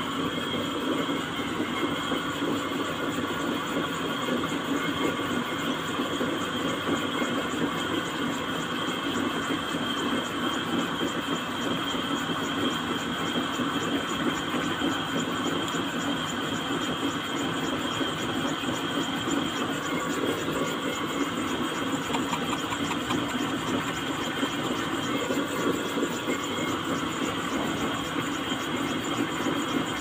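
Electric drill running steadily as it bores into the plastic casing of a car central door lock actuator, to open the casing.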